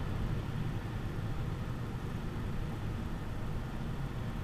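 Cabin sound of a SEAT Leon Cupra 300's turbocharged 2.0-litre four-cylinder cruising at a steady speed: an even low engine drone with tyre and road noise.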